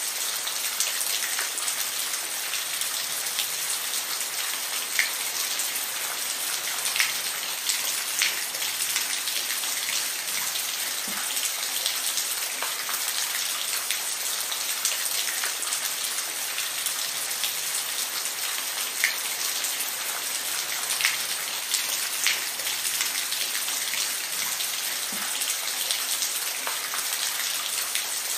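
Steady rain falling, an even hiss with individual drops ticking sharply on a surface every second or so.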